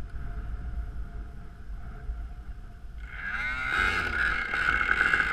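Wind rumble on the microphone under a faint, steady high engine tone. From about three seconds in, the high-pitched whine of a Q500 pylon-racing model aircraft engine grows louder, its pitch sliding and wavering.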